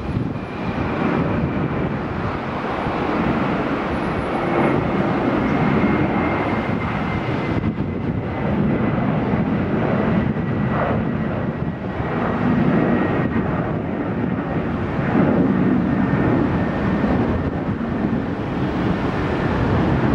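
Jet engines of a Boeing 767-300ER climbing out after takeoff: a steady rumble with a faint whine that drifts slightly down in pitch.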